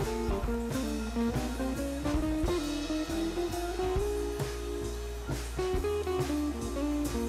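Background music: guitar-led instrumental with a steady bass and drum beat.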